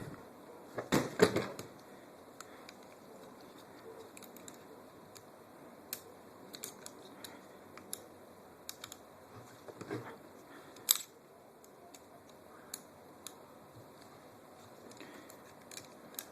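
Scattered small clicks and taps of a metal handguard rail, screws and tools being handled and fitted on an airsoft rifle, with a louder cluster of knocks about a second in.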